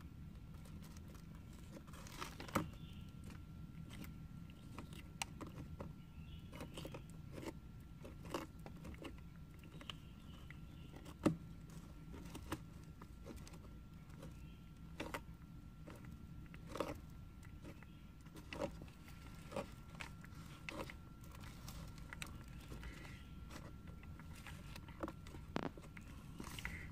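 Young sulcata tortoises biting and crunching pieces of raw carrot: faint, irregular sharp crunches every second or so, with one louder bite about eleven seconds in.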